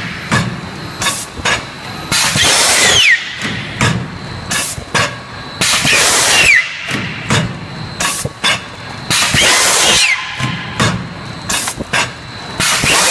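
PP thermoforming machine cycling: a loud hiss of compressed air about every three and a half seconds, some ending in a falling whistle, with sharp clicks and knocks from the mould and valves in between.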